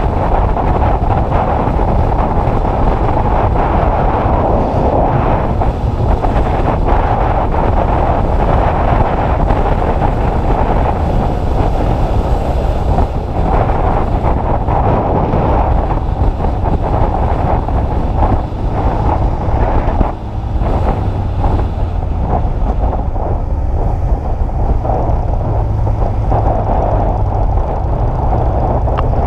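Heavy wind noise buffeting the microphone of a motorcycle under way, a dense steady rush with a brief drop in level about two-thirds of the way through.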